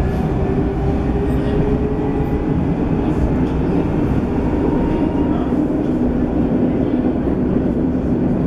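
Tram heard from inside while running: a steady rumble of wheels on the rails, with the whine of the electric traction motors drifting slowly in pitch.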